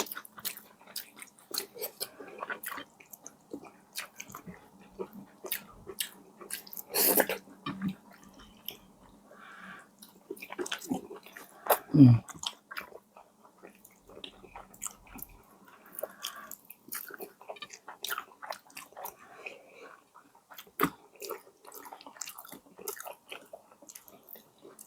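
Close-miked chewing of a person eating: a long irregular string of short wet clicks and smacks, with one louder smack about seven seconds in.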